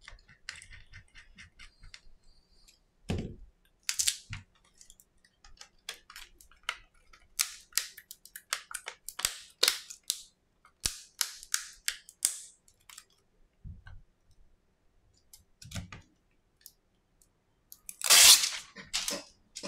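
Hands working on a smartphone's small plastic and metal parts: scattered sharp clicks, taps and short scratchy scrapes, with a few dull knocks and a louder, longer scrape near the end.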